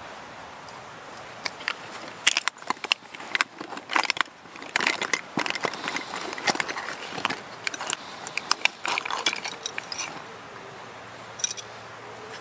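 Hands rummaging through a suede zip pouch, with jars and bottles clinking and knocking against each other among rustling. The irregular clicks and knocks start about two seconds in and die down at about ten seconds, and a few more clicks follow near the end.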